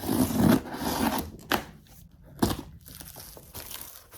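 A delivery box being opened by hand: packaging crinkling and tearing, busiest in the first second, with two sharp cracks, then lighter rustling.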